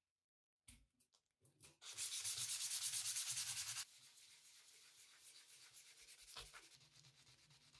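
Sandpaper on a sanding sponge rubbed quickly back and forth over a bare steel hammer head to smooth the filed surface: fast, even scrubbing strokes, loudest for about two seconds, then softer. A few light handling clicks come before it and a single knock comes about six seconds in.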